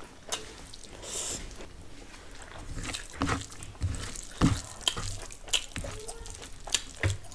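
Rice being squished into curry gravy by hand on a steel plate, with wet mouth and chewing sounds: a string of short, sharp wet clicks and smacks.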